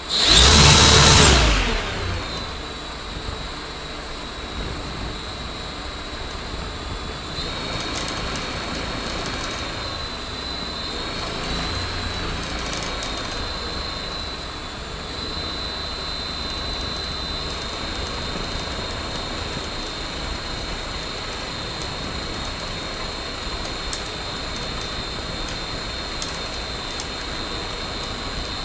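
Hacker A60-16L brushless motor spinning a homemade six-blade propeller that has been thrown out of balance, running steadily with rushing air and a high steady whine while the mount shakes. A much louder rushing surge lasts about the first two seconds.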